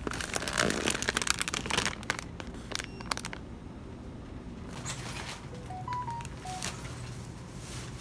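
Plastic snack bag crinkling as it is pulled off a shelf and handled, loudest in the first two seconds, then a few lighter crinkles.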